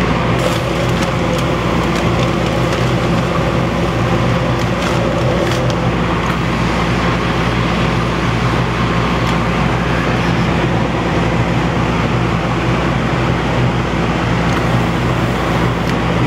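Steady hum and rushing air of a powder coating setup: the spray booth's exhaust fan running while compressed air blows powder out of the powder coating gun.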